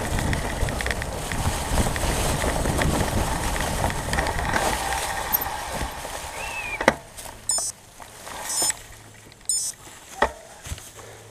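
Fat-tire mountain bike rolling over a dry leaf-covered dirt trail, a loud rattling rush of tyre and leaf noise. It slows and stops with a sharp knock about seven seconds in. After that there are only scattered clicks and leaf rustles.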